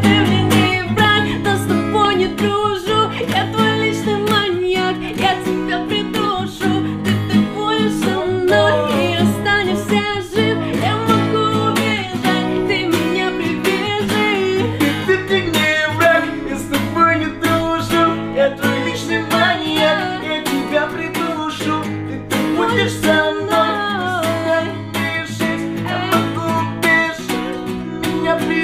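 Acoustic guitar music from an acoustic pop song, plucked and strummed, with singing at times.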